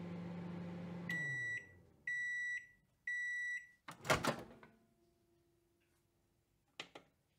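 Microwave oven running with a steady low hum that winds down and stops as the timer ends, then three high beeps about a second apart signalling it is done. About four seconds in comes a loud sudden clunk, and two faint clicks near the end.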